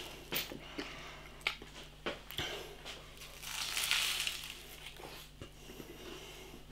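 Biting into and chewing a puff pastry pie lid: small clicks and mouth sounds, with a flaky crunch swelling up about four seconds in.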